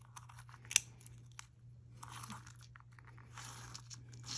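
Small clicks and rustling from metal jewellery chains being handled, with one sharper click about a second in.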